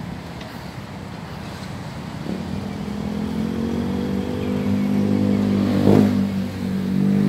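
A motor vehicle's engine running, its hum growing louder from about two seconds in, with a short thump about six seconds in.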